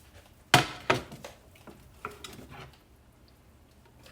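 Cookware clattering as the rice mixture is tipped from a skillet into a pot of boiling water. A sharp knock about half a second in is followed by a second knock and a few lighter metal clinks.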